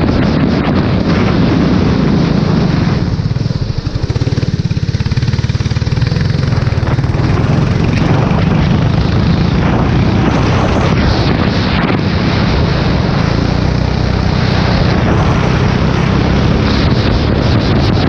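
Formula 4 race car engine running at speed on a wet track, under heavy wind noise on the microphone. About three seconds in the rushing noise drops for a few seconds, leaving the engine's fast low pulse, then builds again.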